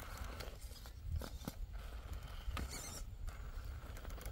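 Axial Capra RC rock crawler climbing a steep rock face: its tyres and chassis scrabble on the stone, with a few sharp knocks and clicks.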